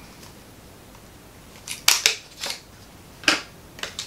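Several short rustles and crinkles of eyeshadow palette packaging being handled, starting a little under two seconds in.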